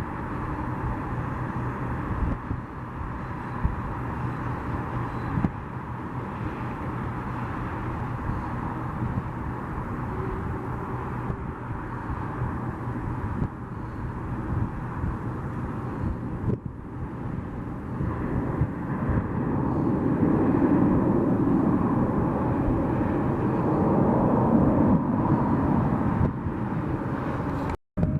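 Jet airliner engines running, a steady noise with a held whine that swells about two-thirds of the way through and then cuts off abruptly near the end.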